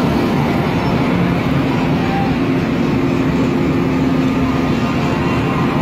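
Steady traffic noise of car and motorcycle engines running on a flooded road, over an even hiss.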